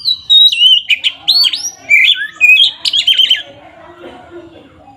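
Oriental magpie-robin (kacer) singing loudly: a burst of whistled notes that slide up and down, ending in a quick run of short falling notes, for about three seconds before it stops.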